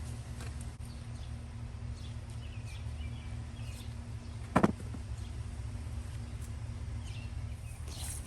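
Outdoor background of a steady low rumble, like distant traffic, with a faint steady hum that stops about two-thirds of the way through and a few faint bird chirps. A single sharp knock comes about halfway through.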